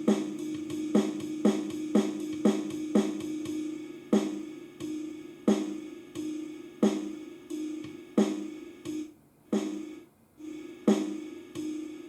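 Drum-machine beat from the NUX Mighty Lite BT mini guitar amp's built-in rhythm function, a simple drum-kit pattern with hi-hat and snare. The hits come about twice a second, then slow to a wider spacing about four seconds in, with two short drop-outs near the end.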